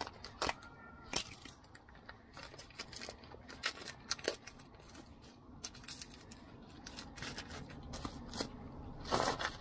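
Irregular light metallic clicks and clinks of worn brake pads and caliper hardware being handled by gloved hands, with a louder rustle near the end.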